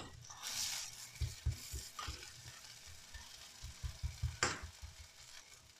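Lentil burger patty sizzling faintly in oil in a nonstick frying pan as a slotted metal spatula presses on it, with a few sharp clicks and scattered low thumps.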